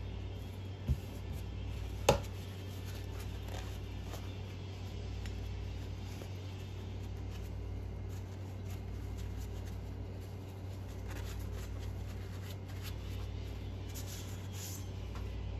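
Light clicks and taps of small engine parts and tools being handled on a workbench, with two sharp knocks in the first couple of seconds, over a steady low hum.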